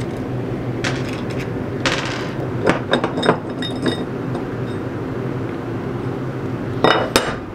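Aluminium soft-plastic injection mold being opened by hand: a scatter of light metallic clicks and clinks as the mold and its brass fittings are handled, then two sharp metal clanks near the end as the top plate comes off and is set down.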